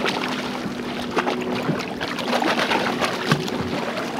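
A hooked false albacore thrashing and splashing at the surface beside the boat, with a steady low hum underneath.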